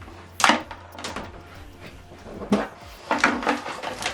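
A few sharp clicks and knocks of handling as an optical (TOSLINK) audio cable is unplugged, over a faint steady hum.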